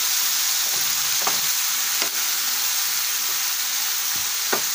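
Cut water lily stems sizzling in hot oil in a wok while a spatula stirs them. The steady frying hiss carries a few light knocks of the spatula against the pan.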